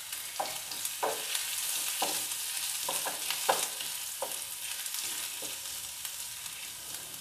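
Chopped garlic and ginger sizzling in hot oil in a nonstick frying pan, stirred with a wooden spatula. The spatula scrapes the pan in short strokes less than a second apart, which stop about five seconds in, leaving the sizzle.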